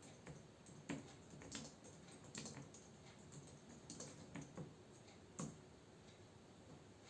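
Computer keyboard being typed on: soft, irregular keystrokes, some in quick pairs, that stop about five and a half seconds in.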